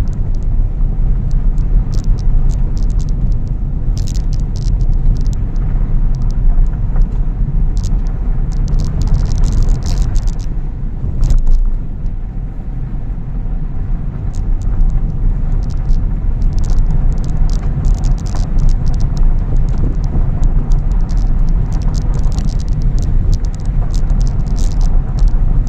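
Car driving on a dirt and gravel track, heard from inside the cabin: a steady rumble of engine and tyres on the loose surface, with frequent clicks and rattles. It quietens briefly about halfway through.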